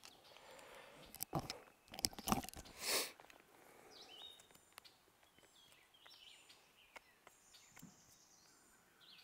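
A few sharp clicks and crunches from a Swiss Army knife and small parts being handled, in the first three seconds. Faint bird chirps follow.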